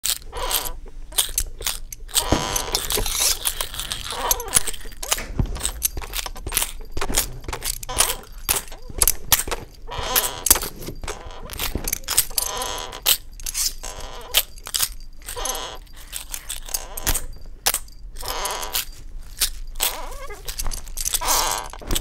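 A busy homemade foley track: many sharp knocks and clatters in quick succession, with noisy scraping stretches and voice sounds mixed in.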